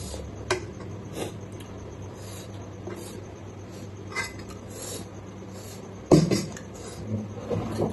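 A metal knife clinks and scrapes against a cooking pot as curry is scraped out onto a plate, in a few separate sharp clicks. A louder knock comes about six seconds in, followed by a little softer clatter.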